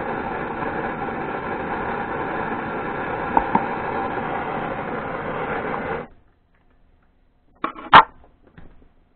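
Portable butane gas torch burning with a steady hiss that cuts off suddenly about six seconds in as the flame is shut off. Near the end come two short knocks, the second one the loudest.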